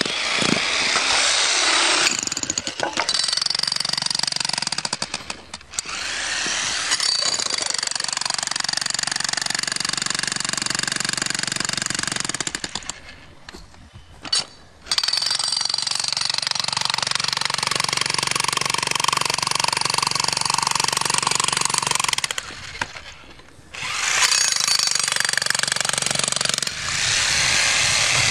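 Handheld jackhammer pounding into rocky ground to dig footing holes, running in long steady stretches and stopping briefly several times.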